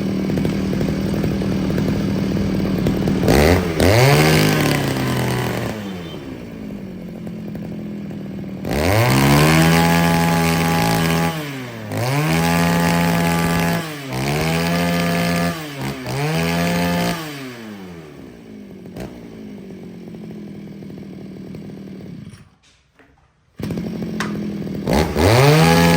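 Husqvarna 543 brush cutter's small two-stroke engine idling and being revved hard five times, the pitch rising and falling with each pull of the throttle trigger, during a test run. Near the end the sound drops out for about a second, then the engine runs again and revs once more.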